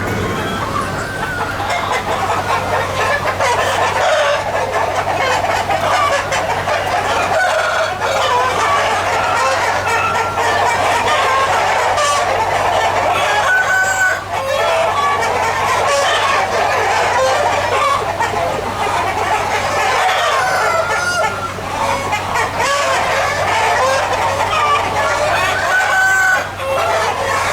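A large flock of chickens clucking and squawking without a break, many calls overlapping, with roosters crowing now and then.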